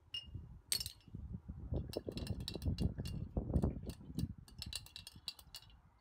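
A brass hinge drops into a glass jar of liquid with one sharp clink, then the jar is swirled and the hinge rattles against the glass in a run of small clinks over dull knocks.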